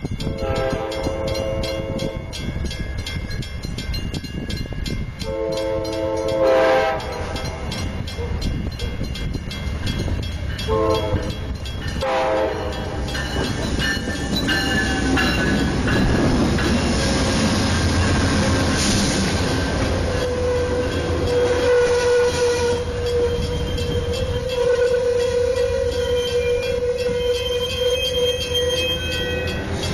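Amtrak California Zephyr's GE P42DC diesel locomotive sounding its horn for the grade crossing as it approaches: two long blasts, then two short ones. Its diesel engines and the train then rumble past, with a steady high squeal over the last third as the train brakes to a stop at the station.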